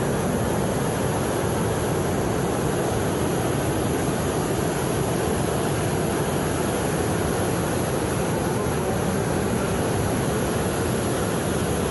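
Steady rushing of a mountain river in monsoon flood, its fast muddy current churning through rapids over boulders.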